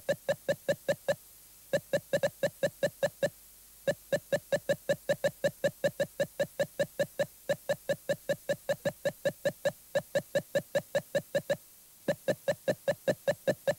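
Rapid electronic beeping: short, identical computer-style bleeps at about five a second, stopping briefly a few times before resuming.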